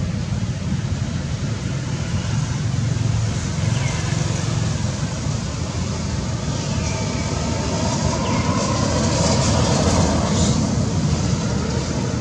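Steady low rumble of wind on the microphone, a little louder in the second half, with a few faint short high chirps.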